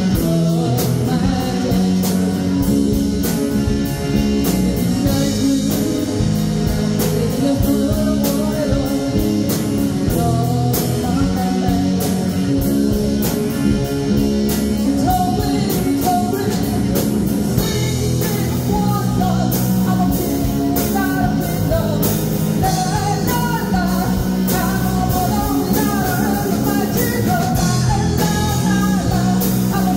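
Live rock band playing: a woman singing lead over electric guitars, bass guitar and a drum kit, with a steady beat.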